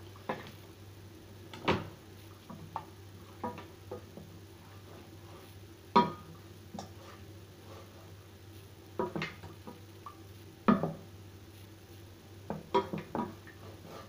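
Irregular clinks and knocks of kitchen utensils against a saucepan and dishes, about a dozen at uneven intervals, the loudest about six and eleven seconds in, over a steady low hum.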